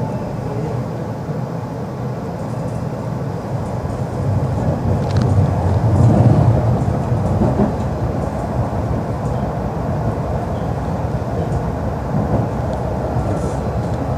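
Tram running along the rails, heard from inside the car: a steady rumble of wheels and running gear that swells louder a few seconds in, then settles.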